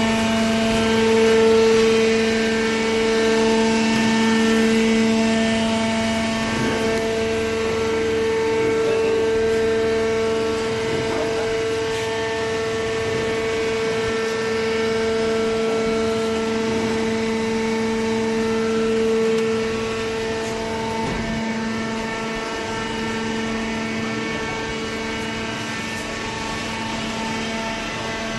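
Hydraulic power unit of a horizontal cardboard baler running with a steady hum, a firm low tone and its overtones, a little quieter after about twenty seconds.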